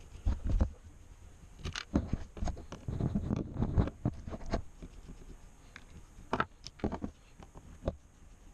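Hands handling the opened plastic casing and internal parts of a JBL Charge 2 portable speaker during disassembly: irregular clicks, taps and scraping, with a longer stretch of rubbing a few seconds in.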